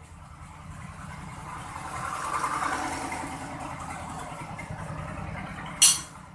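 A steady engine hum that swells and fades over a couple of seconds in the middle, like a passing vehicle, and a single sharp click near the end.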